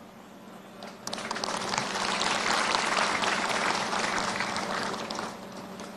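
Crowd applauding. It begins about a second in, swells, and dies down a little after five seconds.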